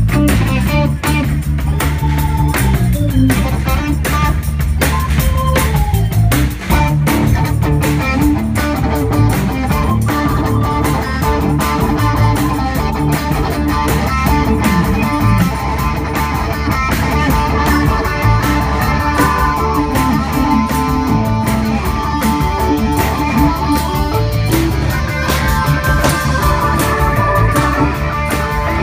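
A live rock band playing: electric guitars over a drum kit keeping a steady beat.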